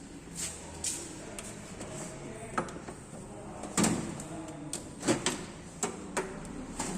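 Metal hand tools (a 12 mm ring spanner, a flat-blade screwdriver and a feeler gauge) clinking and knocking as they are handled and set down: a scatter of sharp clicks, the loudest two near the middle.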